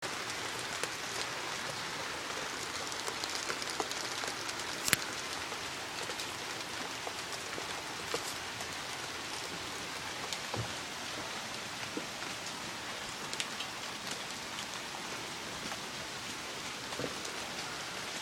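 Heavy rain falling steadily, with scattered sharper taps of drops hitting close by, one louder tap about five seconds in.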